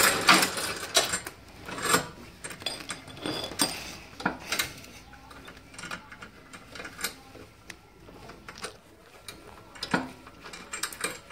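Irregular metallic clicks and knocks of hands and tools working on an electric motorbike's rear wheel and chain, with a few sharper knocks near the start, about two seconds in and about ten seconds in.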